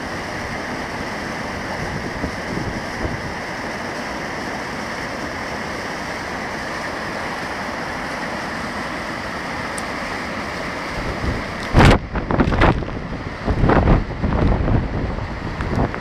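Waterfall rushing steadily, mixed with wind. About twelve seconds in, gusts start buffeting the microphone in loud, uneven low rumbles.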